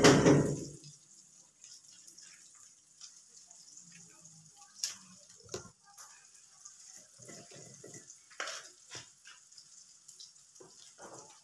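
A loud rushing, water-like sound that dies away within the first second, then quiet kitchen noise with scattered small knocks and clatter.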